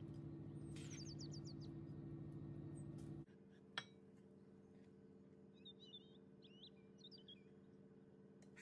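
Faint bird chirps in short high twittering phrases, over a low steady hum that cuts off suddenly about a third of the way in, followed by a single sharp click.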